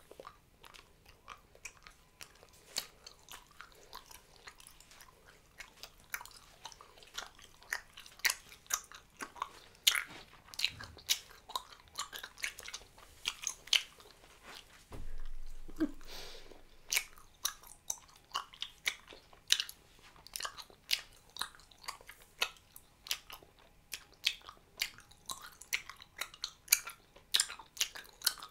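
A person chewing a wad of Hubba Bubba bubble gum with the mouth close to the microphone: irregular sharp chewing clicks, a few a second, with a longer stretch of breathy noise of about a second and a half about halfway through.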